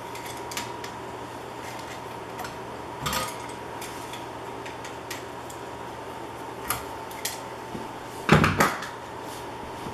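Scattered light clicks and small hard knocks from handling a wall switch and its wires, with a louder clatter about eight seconds in. A faint steady high tone runs underneath.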